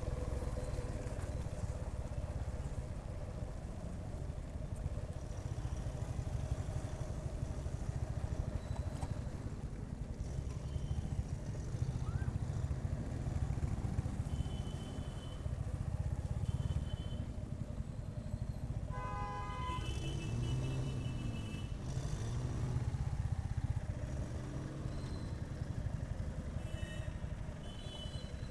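Motorcycle engine running steadily under way, with road and traffic noise. A vehicle horn sounds briefly about two-thirds of the way through, and short high beeps come here and there.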